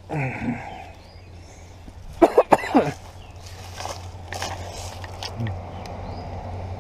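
A person coughing: a short cough right at the start, then a louder fit of two or three coughs a little past two seconds in.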